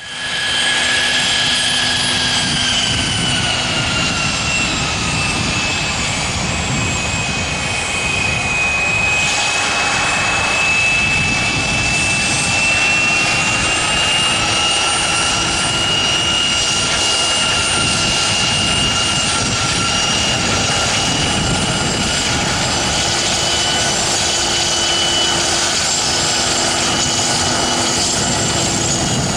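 Twin turbofan engines (Pratt & Whitney PW306B) of a Dornier 328JET running at taxi power as the aircraft rolls close by: a loud, steady engine rush with a high whine. The whine drops a little in pitch over the first several seconds, then holds steady.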